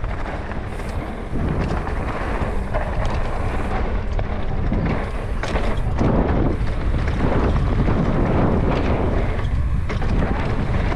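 Wind buffeting a rider-mounted camera's microphone as a downhill mountain bike runs fast down a dry dirt trail, with a constant low rumble from the tyres on dirt and scattered knocks and rattles from the bike over bumps.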